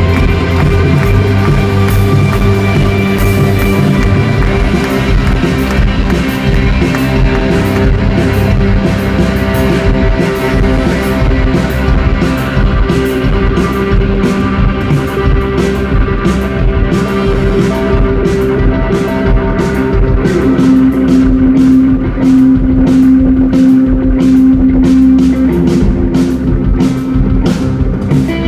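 Live rock band playing an instrumental passage with no singing: electric guitars and keyboards hold sustained chords over a steady drum beat that grows busier after the first several seconds.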